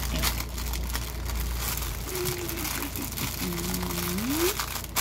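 Clear plastic bag of diamond-painting drills crinkling as it is folded and rolled up by hand, with a short low hum about halfway through that rises at its end.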